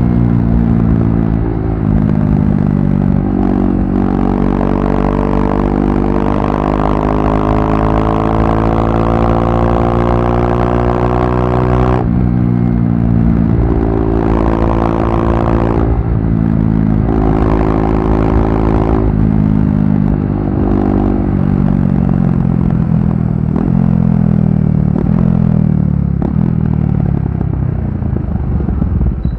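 KTM RC390's single-cylinder engine through a barrel exhaust with the dB killer removed, accelerating hard. The pitch climbs and then drops suddenly at each upshift, three times. Near the end it falls away in steps as the bike slows.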